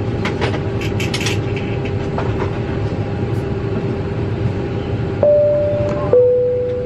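Airliner cabin chime over a steady cabin hum: about five seconds in, a high tone sounds for about a second and steps down to a lower tone that fades away. This high-low chime is the interphone call signal to the cabin crew, a call to pick up the handset. A few light clicks come in the first second or so.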